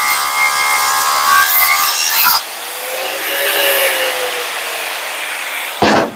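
Angle grinder grinding the welded joint of a steel reinforcement plate on an Eaton truck rear axle housing, the disc whining under load. About two and a half seconds in it comes off the metal and the motor spins down with a falling whine; near the end there is a short loud burst of noise.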